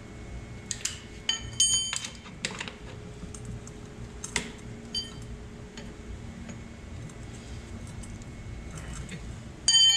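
Metal hand tools and parts clinking and tapping against a steel air brake chamber: scattered sharp clicks and ringing clinks, a cluster of them about a second and a half in and the loudest ringing clink just before the end, over a steady low hum.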